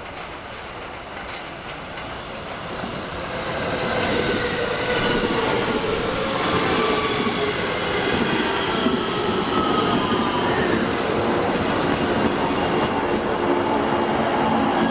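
JR West electric commuter train pulling into the station and passing close. It grows louder about three seconds in as the cars reach the microphone, with a dense rolling rumble under several whining tones that slowly fall in pitch as it slows.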